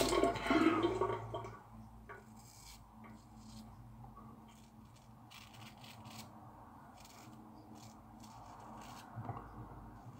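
A shavette razor with a Gillette Seven O'Clock Super Stainless blade scraping through lathered seven-day stubble on the upper lip, in short, faint rasping strokes about once a second. Running water dies away in the first second or so.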